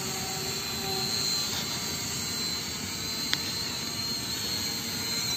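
E88 toy camera drone's propellers and small motors running steadily as it hovers, a buzzing hum with a thin, steady high whine. A single sharp click a little past three seconds in.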